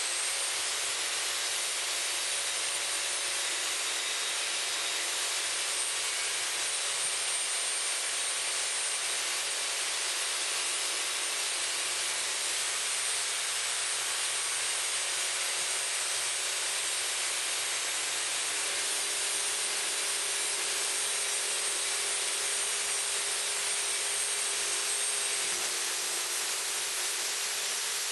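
A metalworking tool running continuously on steel: a steady, even hiss with a faint high whine over it.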